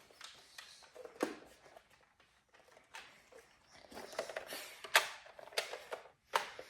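Scattered plastic clicks and rattles of a Nerf foam-dart blaster being handled and worked, with a dart jammed inside it.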